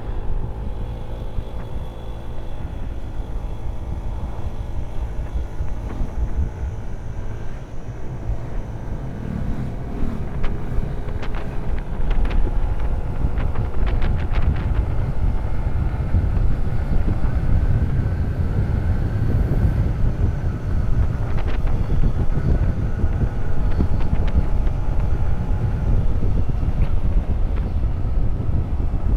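Motorcycle engine running under steady throttle, held on without lifting, with heavy wind rush on the microphone that grows a little louder about halfway through.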